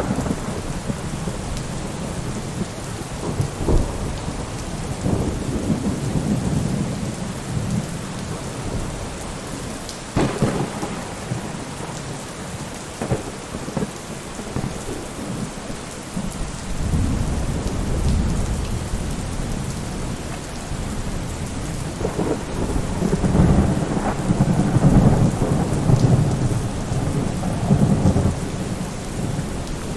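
Steady rain falling, with low rumbles of thunder swelling and fading, the loudest rolling through the second half.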